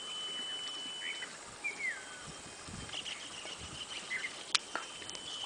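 Forest ambience: birds calling with short falling whistles over a steady high-pitched insect whine that stops and starts again, and one sharp click about four and a half seconds in.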